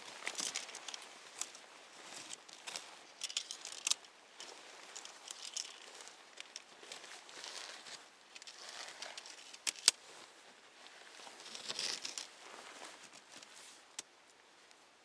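Nylon tent fabric rustling and crinkling as the tent is handled during pitching, with scattered sharp clicks; the loudest clicks come a little under ten seconds in.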